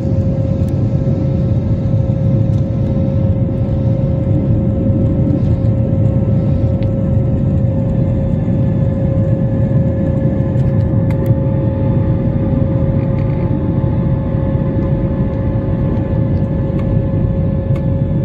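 Airliner cabin noise during the climb after takeoff: the underwing turbofan jet engines give a steady low rumble with a steady whine over it, and a few fainter, higher tones join about halfway through.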